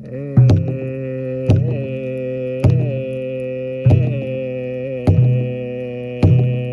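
Music: a slow, even drumbeat, one stroke about every second and a quarter, under a long held droning note.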